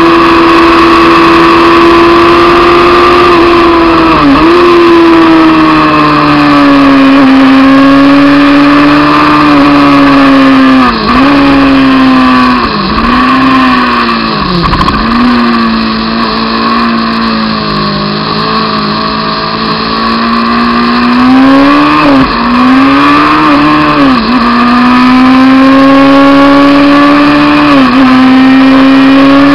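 Honda CBR600 F2's inline-four engine running loud at high revs, its pitch slowly sagging and climbing back again. Several brief sharp dips in the revs break it along the way.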